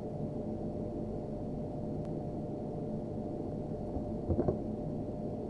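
Steady low background hum, with a faint click about two seconds in and a brief voice sound a little after four seconds.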